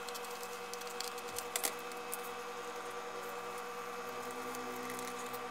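Scissors snipping a sheet of plastic dry-film solder mask, with light crinkling and rustling of the film as it is handled; small scattered clicks over a steady hum.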